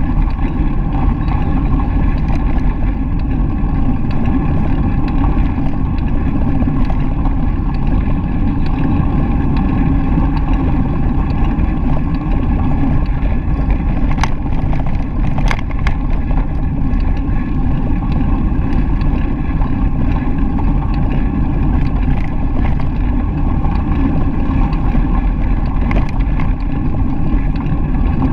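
Steady low rumble of a bicycle ride on a gravel path: the tyres roll over gravel and wind buffets the GoPro's microphone. A couple of sharp clicks come a little past the middle.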